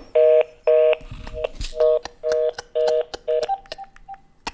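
Telephone line's fast busy tone: a two-note tone pulsing about twice a second, the sign that the other party has hung up and the call is dead. The tone stops about three and a half seconds in, and a few sharp clicks follow.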